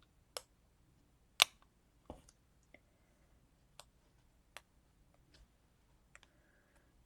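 Scattered small clicks and taps of hands handling paper craft pieces and stickers on a tabletop, about eight in all, the loudest about a second and a half in.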